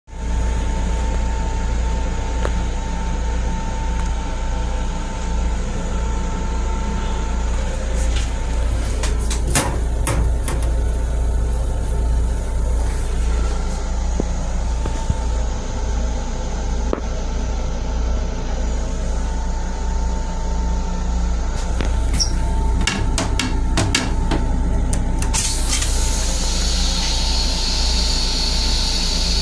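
Long Island Rail Road M7 electric railcar running, heard from inside its small restroom: a steady low rumble with a constant whine, with two spells of clattering knocks. A steady hiss comes in about 25 seconds in.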